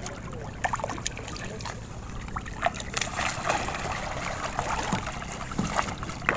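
Water splashing and trickling at the surface as a swimmer in a snorkel mask duck-dives and kicks down beside a boat, with many small sharp splashes and drips.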